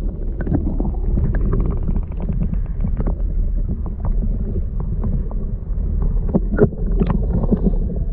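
Stream water heard through a submerged camera: a muffled low rumble of flowing water, with scattered small clicks and a few sharper knocks, the loudest around two-thirds of the way in.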